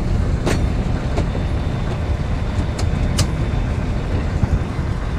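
A vehicle running, a steady low rumble, with a few short sharp clicks.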